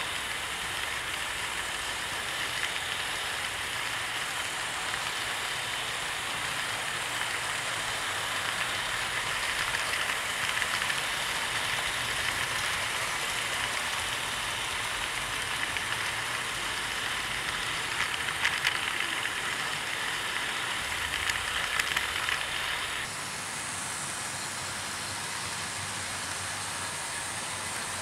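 00 gauge model trains running on sectional track: a steady electric-motor whir and wheel noise, with a few clicks as wheels cross rail joints. About 23 seconds in, the sound changes abruptly to a quieter, softer run.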